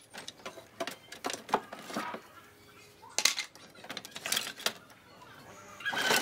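Scrap timber offcuts and thin wooden slats knocking and clattering against each other as they are picked through by hand in a wooden crate: scattered, irregular wooden clacks.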